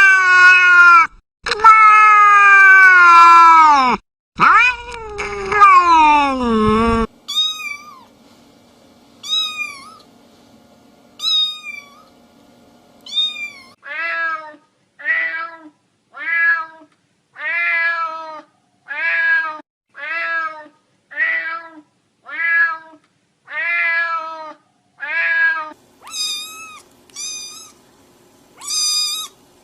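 Cats meowing in a series. First come three long, loud, drawn-out meows, the last one sliding down in pitch. Then come short, very high-pitched mews about once a second, and then a steady run of short, repeated meows at about one a second.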